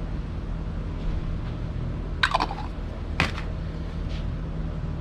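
A spoon scooping more tomato sauce and spreading it on pizza dough, with two short sounds about two and three seconds in, over a steady low hum.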